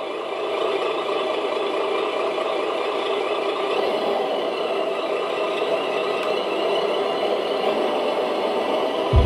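Simulated truck diesel engine idling steadily from the sound module of an RC Mercedes Zetros 6x6 fire truck, just after its start-up. A deeper low rumble joins at the very end.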